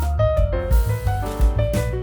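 Background music: a jazzy piano tune over a steady bass line and beat.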